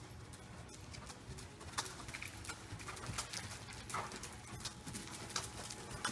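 Hoofbeats of a ridden horse trotting on soft dirt arena footing: a steady run of dull strikes that grows louder as the horse comes closer.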